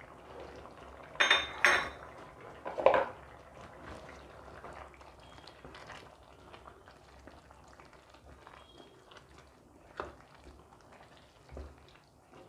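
A metal spoon clinking against a steel pressure-cooker pot, two ringing strikes a little over a second in and another about three seconds in, then a few faint taps near the end, over the low steady simmer of rice cooking in liquid.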